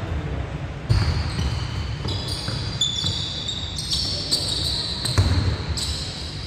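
Basketball bouncing on a hardwood gym floor in a few thuds, with short high squeaks of sneakers on the court.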